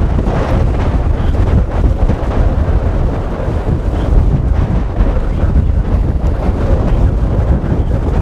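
Strong storm wind buffeting the microphone, a steady low rumble.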